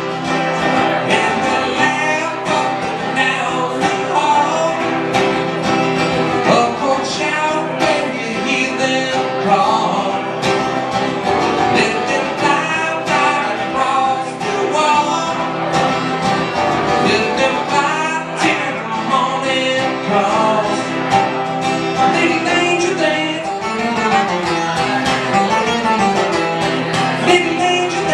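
A man singing while playing an acoustic guitar, a live song amplified through the room.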